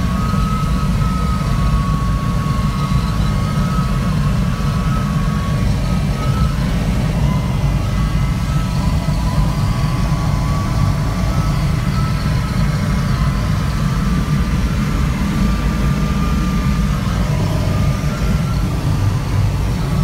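Steady rush of airflow over the cockpit canopy of an ASK 21 glider in a fast descent, with a faint steady high tone running under it.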